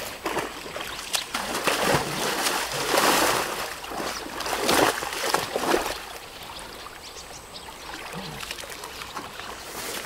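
Water splashing and trickling in several surges over the first six seconds, then quieter with faint ticks.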